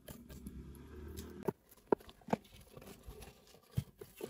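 Cardboard shipping box being slit open with a box cutter and its flaps pulled back: a few short, sharp cardboard clicks and rustles.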